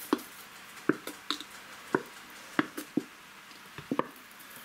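Plastic squeeze bottle of yellow mustard being handled and squeezed over bread: a string of about ten short, irregular clicks and taps.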